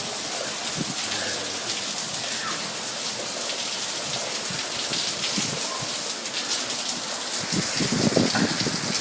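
Steady rain falling and pattering on hard ground, a dense hiss of drops. A few dull low thumps come near the end.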